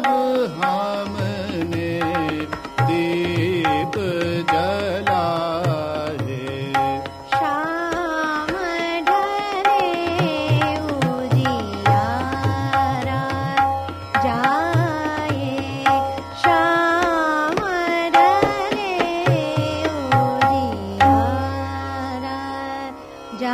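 Hindustani classical vocal performance of a bandish in Raag Hansdhwani: a singer's voice moving through fast, winding melodic runs over a steady tanpura drone, with tabla accompaniment.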